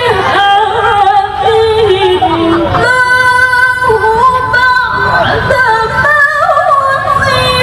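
Female Qur'an reciter (qari'ah) chanting in melodic tilawah style, with long held notes and wavering melismatic ornaments. Her voice steps down in pitch over the first few seconds, then leaps to a high sustained note about three seconds in.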